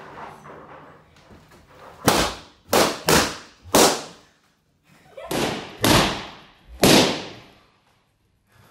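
Balloons popping: about seven loud, sharp bangs in quick succession from about two seconds in, each with a short fading echo.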